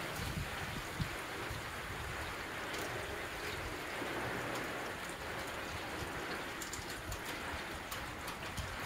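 Steady rainfall: an even hiss of rain with scattered drip ticks, and one soft thump about a second in.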